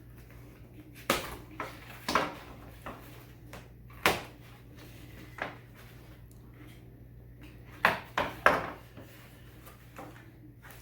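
A mailed comic package being opened by hand: short, sharp rips and crinkles of packaging, about seven in all, three of them close together near the end.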